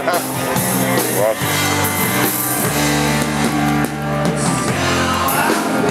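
Rock music with guitar and drums playing steadily.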